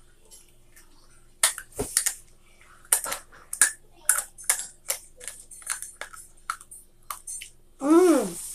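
Someone biting and chewing dry pasta, with a series of sharp crunches roughly every half second. Near the end comes a short voice sound that falls in pitch.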